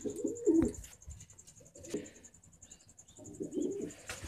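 Domestic pigeons cooing: low, throaty coos in several bouts, at the start, around two seconds in and again near the end.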